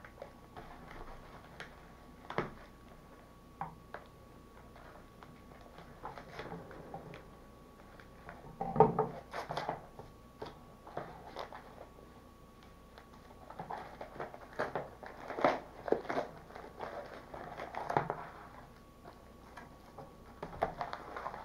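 Padded paper mailer being slit open with a pocket knife and unpacked: crinkling and rustling of paper and plastic packaging with scattered clicks and taps, loudest about nine seconds in and again between about fourteen and eighteen seconds in.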